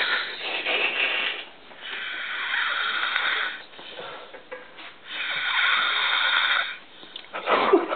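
A man snoring heavily: three long, rasping snores about every two and a half to three seconds, with quieter breaths between them.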